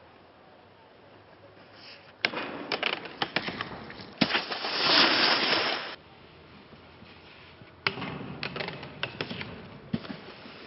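A terrain-park rider hitting rail features on snow: a sharp clack and a run of knocks, then a hard hit and a loud scraping slide of about two seconds that cuts off suddenly. A few seconds later comes another sharp clack with a series of knocks and scraping.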